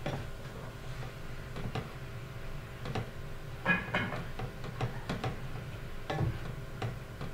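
A spoon stirring a skillet full of shredded cabbage and ground beef, knocking and scraping against the stainless steel pan in irregular clicks, about two a second.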